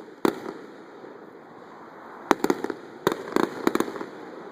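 Aerial display fireworks bursting: one sharp bang just after the start, then two rapid runs of several bangs in the second half.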